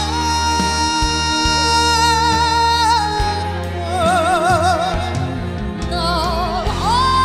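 A slow Korean trot duet sung live over instrumental accompaniment: a long held sung note, then a male voice singing with wide vibrato in the middle, and another long note rising in near the end.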